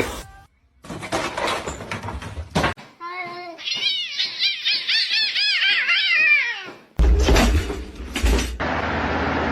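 A cat calling in a quick run of short, arching meows, about five a second, for some three seconds in the middle. Short stretches of other, noisier sound come before and after, with abrupt cuts between them.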